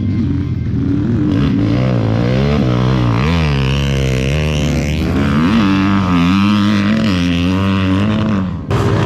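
Dirt bike engines revving hard, their pitch climbing and falling again and again as the riders accelerate and shift around the track. The sound dips briefly near the end.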